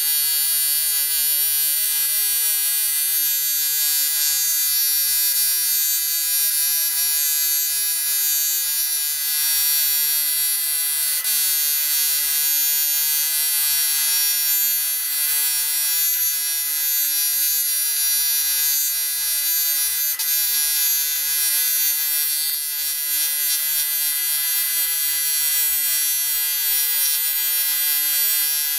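TIG welding arc buzzing steadily and evenly, with a strong high hiss, as a crack in a Volkswagen 1.9 diesel's aluminium cylinder head is fused with doubled filler wire.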